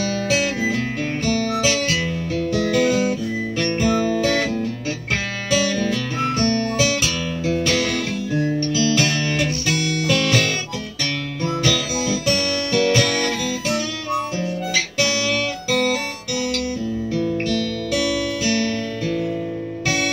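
Acoustic guitar played solo, strumming and picking chords in the closing instrumental part of a song, with no singing.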